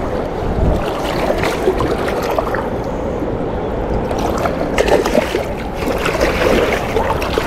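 Steady rush of river water below a dam, with a few brief sharper sounds about five seconds in.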